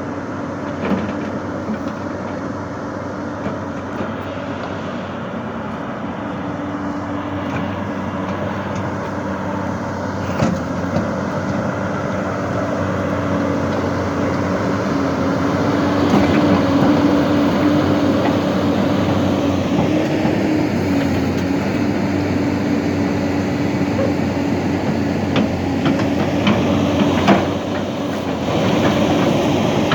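Hyundai excavator running with a steady whine over the engine, with a few clanks, growing louder about halfway through.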